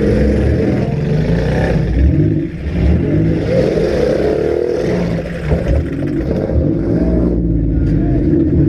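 Several compact cars' engines revving hard at once in a demolition derby, their pitches rising and falling against each other, with a few brief knocks.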